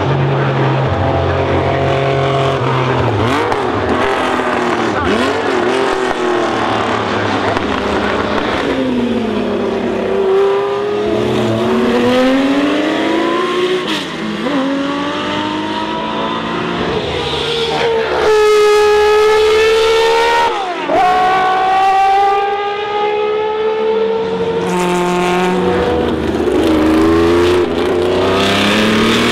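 Racing car engines at high revs, their pitch climbing and falling repeatedly as they change gear, several engines overlapping. The loudest, highest-revving stretch comes about two-thirds through and ends in a sudden drop in pitch.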